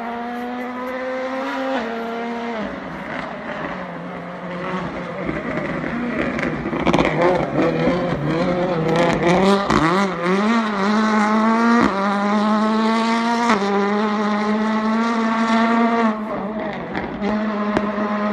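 World Rally Car's turbocharged four-cylinder engine accelerating hard up through the gears, its pitch climbing and dropping with each quick upshift. The note wavers briefly about ten seconds in, as the car takes a bend.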